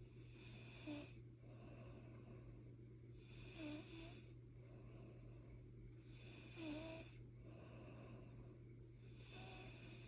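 Soft snoring from a sleeper, a breath about every three seconds, with a short snort about one, four and seven seconds in. A steady low hum runs underneath.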